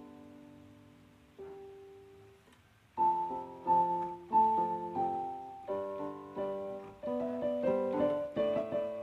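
Piano music: a few soft, slowly fading notes, then from about three seconds in a livelier run of louder notes.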